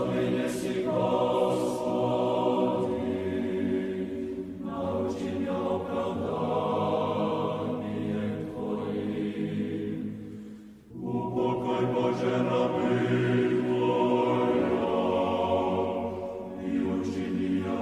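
Church choir singing a slow Orthodox chant in long sustained chords, with a short break between phrases about eleven seconds in.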